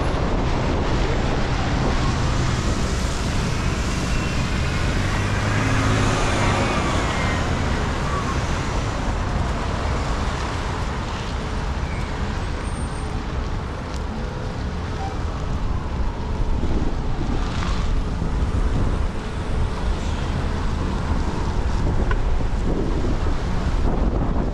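City street traffic: cars and a box truck driving through an intersection, a steady rumble and tyre hiss with some wind on the microphone. About five seconds in, a vehicle's engine note rises and falls as it pulls away.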